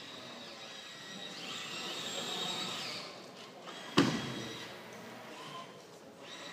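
Tracked rescue robot's drive motors whining as it crawls forward, the whine wavering in pitch, then one sharp knock about four seconds in as the robot's front strikes a plywood box.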